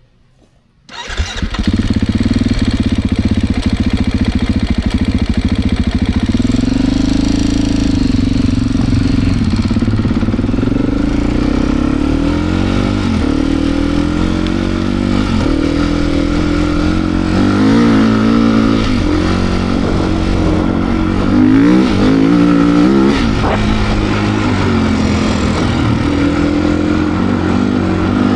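Beta RR390 X-Pro enduro motorcycle's single-cylinder four-stroke engine under constant throttle changes while riding through deep sand, its note rising and falling again and again. The engine sound comes in suddenly about a second in.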